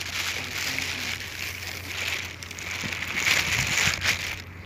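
Shallow water splashing and sloshing in irregular swells as someone wades through it over rocks.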